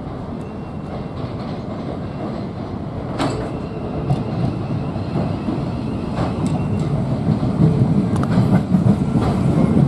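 Electric multiple-unit passenger train running into a terminus platform, growing steadily louder as it approaches, with a few sharp clicks from the wheels over rail joints.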